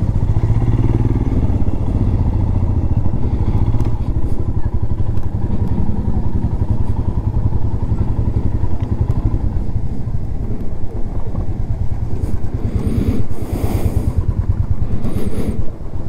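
Motorcycle engine running steadily, heard close up as a low, rapid pulsing rumble. A couple of short hissing bursts come in about thirteen and fifteen seconds in.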